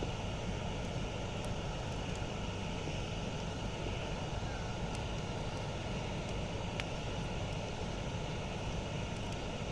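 Campfire burning with a steady low rumble and a few sharp crackles and pops from the wood, the loudest pop a little before seven seconds in.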